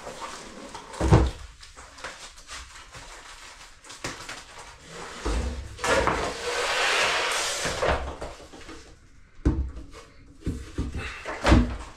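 A stainless steel kitchen sink being unpacked: cardboard and plastic wrapping rustle and scrape, with a thump about a second in and sharp knocks near the end as the sink is handled and set down on the benchtop.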